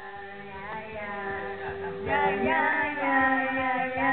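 Karaoke singing: a voice singing through a microphone over backing music, getting louder about two seconds in.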